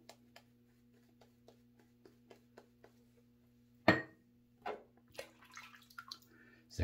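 Faint, quick, evenly spaced strokes of a shaving brush working lather over the face, then about four seconds in a single sharp knock as something is set down, followed by a few softer knocks and handling sounds.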